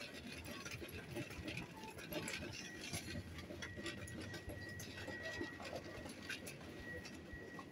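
Supermarket background noise: a low hum with scattered clicks and rustles, and a steady high whine that comes in about halfway through.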